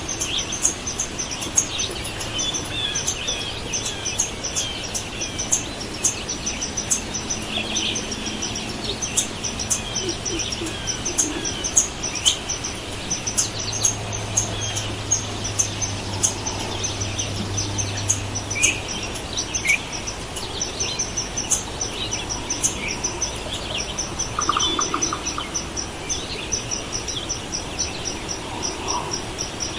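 Forest ambience of many birds singing and calling, with short high chirps and warbling phrases overlapping throughout. Near the end, short high chirps come in an even run. A low hum sounds for about five seconds midway.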